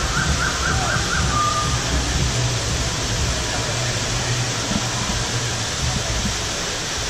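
Steady rush of falling water, with a short run of about five quick high chirps in the first two seconds.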